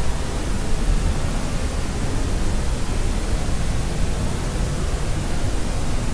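Steady white noise of the kind played to help a baby sleep: an even, unbroken rushing hiss, heavier in the low end than in the treble.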